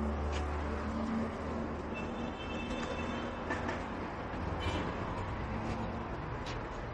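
A steady low mechanical rumble with a hiss over it, strongest in the first two seconds. There are a few light clicks and a brief high squeak about two seconds in.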